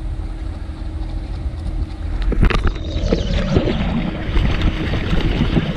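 A hooked snakehead splashing and thrashing at the water surface, in irregular bursts starting about two and a half seconds in, over a steady low rumble of wind on the microphone.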